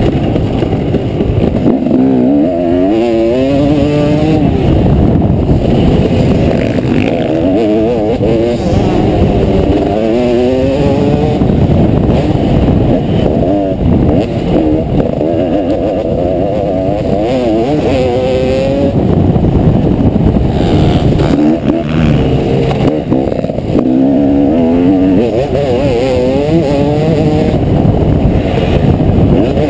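Motocross bike engine revving hard and backing off again and again as the rider works the throttle and gears round the track. Heard from on board the bike, it sounds muffled.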